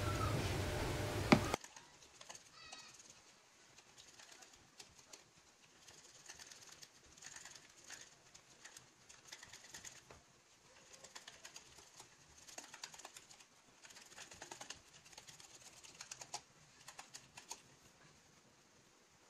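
A wire balloon whisk beating softened butter and condensed milk in a ceramic bowl, creaming it for buttercream: faint runs of quick clicks and scrapes of the tines against the bowl, a second or two at a time. At the start a louder stretch of background noise ends in a sharp knock, then cuts off suddenly.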